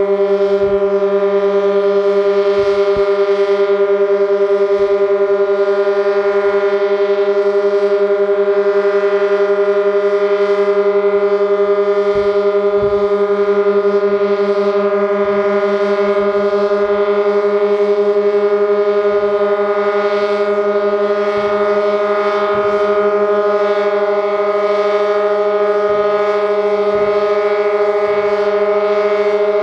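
Sentry 16V1T-B outdoor warning siren sounding a loud, steady low tone that creeps slightly up in pitch, without any wavering. This is a sick siren running on dying batteries.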